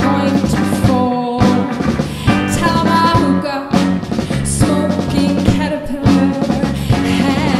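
Live rock band playing, with electric guitars, electric bass and a drum kit, and a woman singing.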